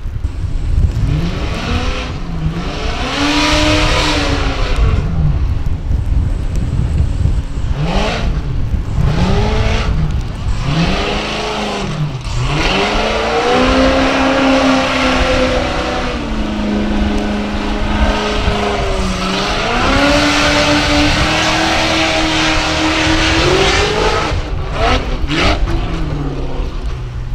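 Formula Offroad unlimited-class hill-climb buggy's engine revving hard in repeated surges, the revs swinging up and down, then held high for several seconds while the tyres dig through the mud, before dropping away near the end.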